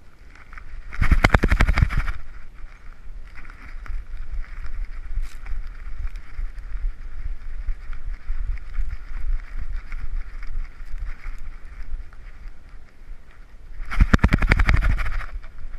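Rubbing and rattling noise from a GoPro camera strapped to a dog's harness as the dog moves, in two loud bursts of rapid crackling, one about a second in and one near the end, over a steady background hiss and low rumble.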